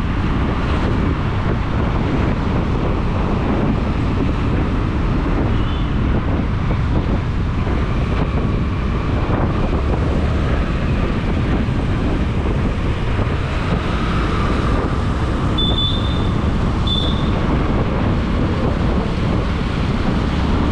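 Wind buffeting the microphone of a moving motorbike on a wet road, over the steady rumble of the engine and road. Two short high beeps sound close together near the end.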